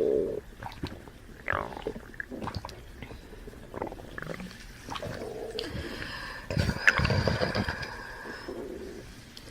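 A string of short gassy body noises, burps and farts, coming one after another. The longest and loudest comes about seven seconds in.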